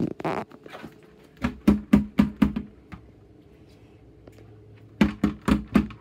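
Knocking with a hand on a house's front door: a quick run of about five knocks, then about four more near the end.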